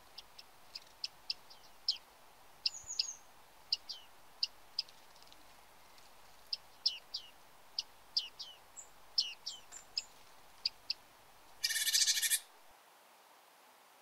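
Bearded reedlings calling: a scattered string of short, high, sharp call notes, some single and some in quick pairs or triplets. Near the end comes one louder buzzy rasp lasting under a second.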